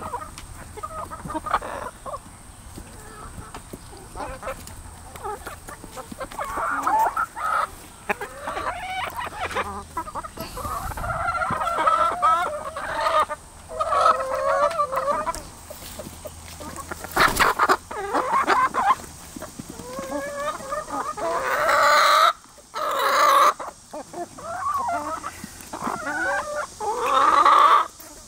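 A flock of backyard chickens, hens and a rooster, clucking and squawking in a steady run of short calls as they crowd in to be hand-fed treats. The calls are louder around two-thirds of the way through and again near the end.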